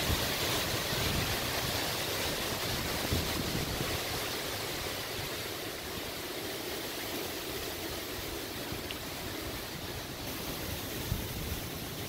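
Strong wind gusts roaring through the leafy branches of tall trees, a steady rushing noise with wind buffeting the microphone at the start. The gust eases a little after a few seconds and picks up again near the end.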